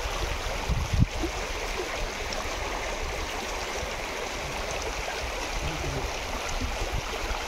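Shallow stream running steadily over stones, with a single brief low thump about a second in.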